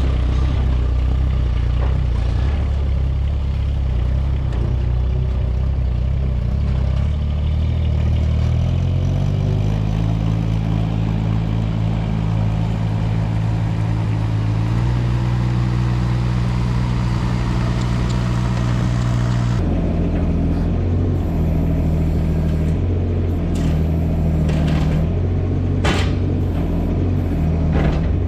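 Diesel engine of heavy equipment running, its revs rising about nine seconds in and changing again twice later, with a few sharp knocks near the end.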